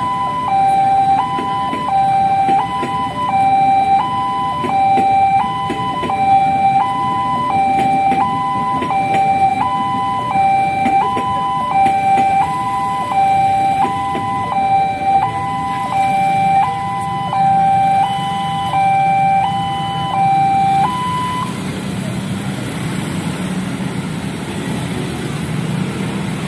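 Railway level-crossing warning alarm sounding a two-tone high-low signal about once a second while a passenger train rumbles past. The alarm stops about three-quarters of the way through, and motorcycle and road traffic noise rises as the crossing reopens.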